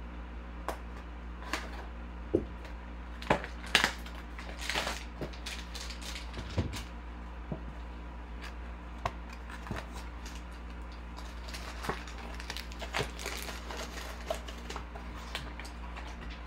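A folding knife slitting open a cardboard trading-card box, then cardboard and foil wrappers rustling and crinkling as two foil card packs are pulled out and set down, with scattered clicks and taps over a steady low hum.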